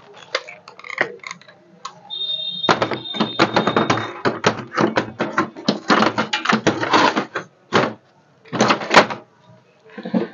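Plastic clicks and knocks of an HP LaserJet M1005 toner cartridge being handled and seated inside the printer, ending with a loud thunk as the printer's scanner lid is shut about nine seconds in. A thin, steady high tone holds for about two seconds a little after the start.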